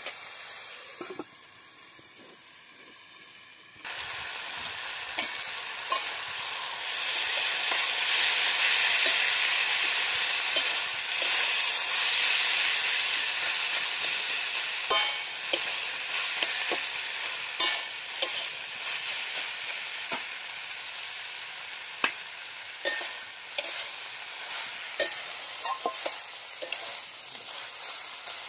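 Cabbage and potato curry frying and sizzling in a large metal wok (karahi) while a flat metal spatula stirs and scrapes it, with scattered clicks of the spatula on the pan. The sizzling is quieter for the first few seconds, grows loudest several seconds in, then eases off.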